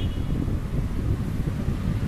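Wind buffeting the camera's microphone, an uneven low rumble.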